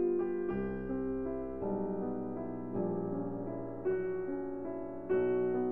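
Background piano music, calm and melodic, with a new note or chord about every second.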